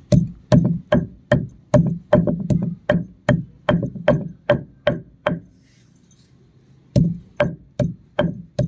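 Stone pestle pounding fresh coriander leaves on a flat stone grinding slab (pata), giving sharp, dull strikes about two or three a second. After about five seconds the pounding stops for a second and a half, then resumes at the same pace.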